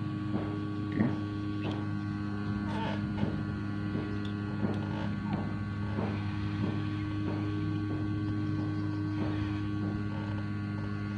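Hot air rework station running: its blower makes a steady electric hum while hot air is played over a speaker's circuit board to desolder components. Faint light clicks come now and then.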